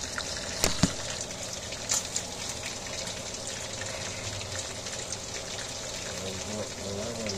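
Food sizzling on the stove, a steady hiss, with a few sharp clicks in the first two seconds.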